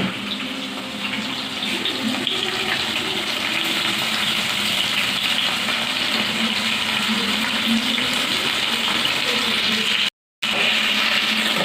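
Chicken pieces frying in hot oil in a kadai, a steady loud sizzle. It cuts out for a split second about ten seconds in.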